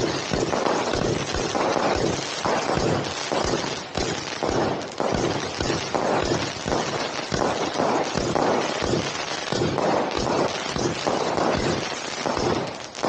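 Fireworks going off at close range: a dense, unbroken run of bangs and crackles over a steady hiss, from a ground fountain shooting sparks and aerial shells bursting overhead.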